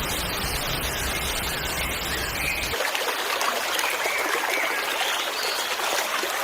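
Steady hiss of trickling, running water.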